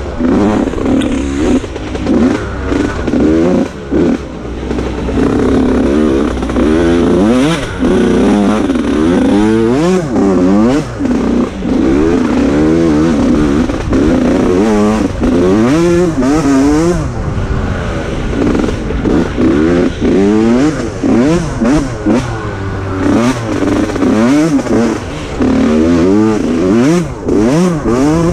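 Mini dirt bike's engine revving up and falling back again and again as it is ridden hard through deep mud, with knocks and clatter from the bike over the ruts.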